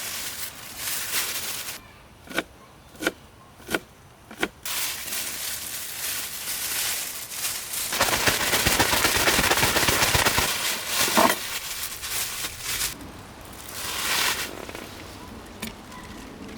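Gyoza frying in a pan: oil sizzling and crackling, with four sharp pops close together, then a louder, denser sizzle from about eight seconds in that dies down again.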